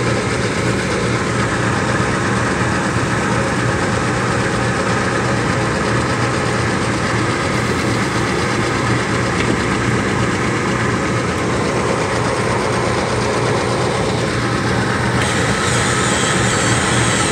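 Steady, unbroken machine hum like an idling engine, with a faint hiss that grows slightly near the end.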